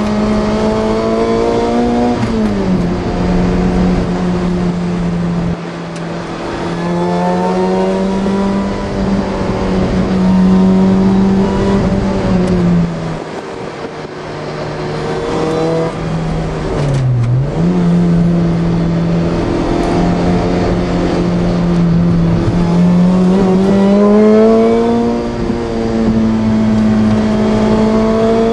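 Supercharged car engine running at 9.7 psi boost, heard from inside the cabin while driving. The engine note rises and falls with the throttle several times, with a short sharp drop and climb back about two-thirds through.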